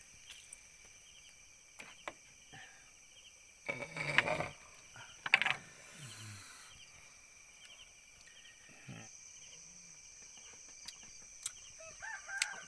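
Outdoor night ambience: insects, crickets by the look of it, trilling steadily, with a couple of short louder knocks or rustles around four and five seconds in. Near the end a rooster starts to crow.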